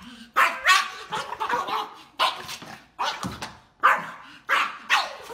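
A small shaggy dog barking at a squirrel: a rapid run of sharp barks, about two a second.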